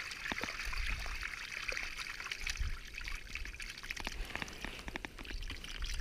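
Water pouring and trickling from a tipped plastic bucket into a river, as small live fish are let out, with small splashes and ticks throughout.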